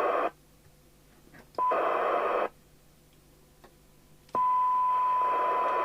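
Binatone Route 66 CB radio's speaker with the squelch opening and closing: receiver hiss cuts off shortly after the start, bursts back briefly about a second and a half in with a short steady tone, then opens again a little after four seconds with a steady high test tone over hiss that cuts off abruptly near the end. This is the squelch being set at its threshold, with the signal generator's level hovering around the point where the squelch opens.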